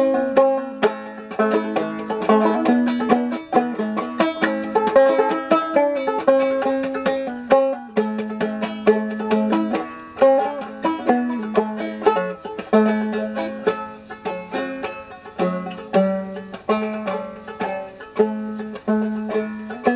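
Five-string banjo played clawhammer style: a quick, steady run of picked notes and brushed chords.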